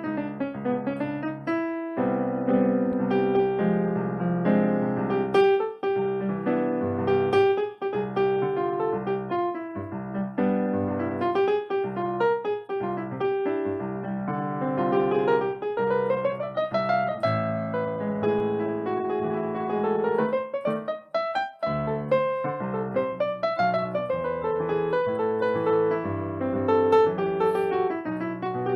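Piano playing fast rising and falling runs over held chords in a Brazilian jazz style, with a couple of brief pauses.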